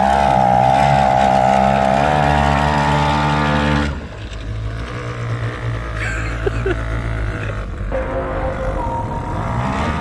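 Small outboard motor on a one-person boat running steadily, loud and close at first with its pitch wavering slightly. About four seconds in, the sound drops suddenly and the motor carries on fainter.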